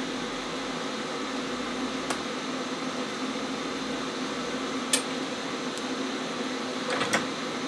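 Steady mechanical hum with several held tones, like a running fan, with a few light clicks about two, five and seven seconds in.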